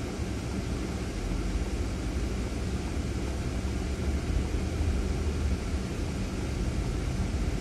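Ford Fiesta's engine and tyre noise heard from inside the cabin, a steady low rumble that grows slightly louder as the car pulls away from a standstill and gathers speed.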